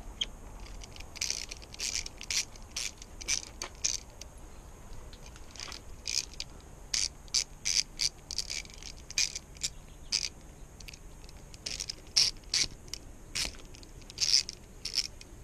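3/8-inch drive ratchet with a spark plug socket clicking in short, irregular runs, the sound of spark plugs being backed out of the outboard's cylinder heads.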